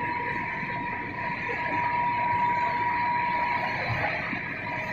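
Corn flakes production line machinery running: a steady mechanical noise with a constant high whine.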